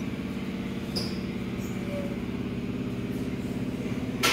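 Ford 4.6L V8 idling with a steady, even hum. A sharp click sounds just before the end.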